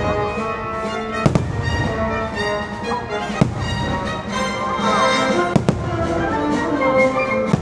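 Orchestral show music with fireworks bursting over it: a few sharp bangs, about every two seconds, over the steady orchestra.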